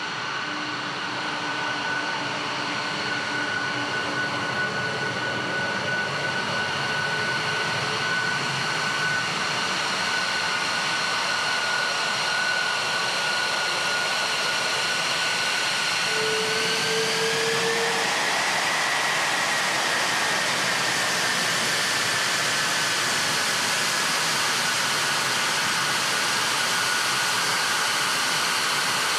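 F-22 Raptor's twin Pratt & Whitney F119 turbofan engines running at taxi power: a steady jet rush with a high turbine whine. The whine rises in pitch a little past halfway, then slowly eases back down.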